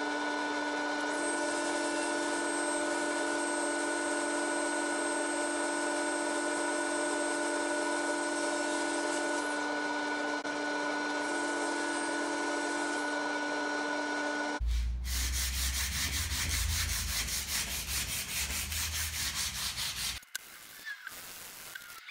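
SawStop table saw running with a steady whine while small hardwood pieces are fed through the blade. About fourteen and a half seconds in, the sound switches abruptly to a heavy low rumble with fast rattling, which breaks up near the end.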